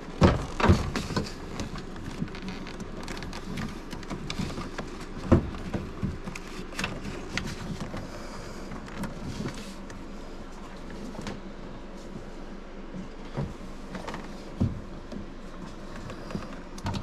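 Clicks, taps and handling noise from hands working on a car's bare inner door and its plastic connectors and trim, with a few sharp knocks in the first second and another about five seconds in.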